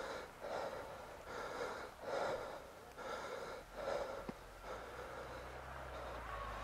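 A person breathing close to the microphone, soft even breaths in and out about one every second. A faint low steady hum comes in about five seconds in.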